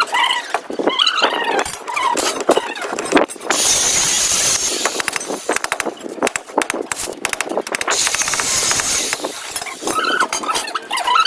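Pet birds giving shrill squeaky calls, clustered near the start and again near the end. Two stretches of harsh rushing noise, each about a second long, come about a third of the way in and again about two-thirds in.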